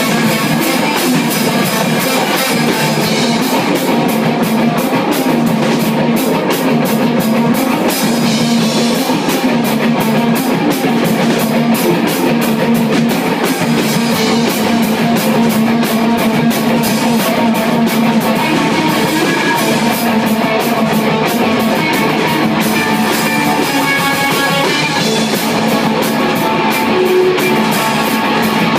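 Live rock band playing loudly without a break: guitar over a drum kit, with drum and cymbal strokes coming thick and fast.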